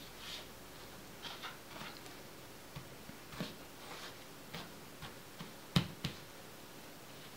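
Bottom of a small glass measuring cup pressing and scraping buttered biscuit crumbs into a fluted tart tin: irregular soft scrapes and crunches, with one louder knock late on.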